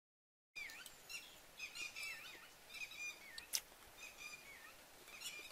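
A songbird singing, starting about half a second in and repeating a short phrase with a wavering whistled note roughly once a second. A single sharp click comes about three and a half seconds in.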